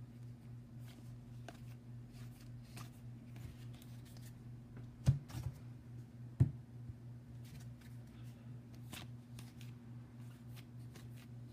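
Baseball cards being handled and flipped through: soft, scattered card-stock clicks and slides, with two sharper taps about five and six and a half seconds in, over a steady low hum.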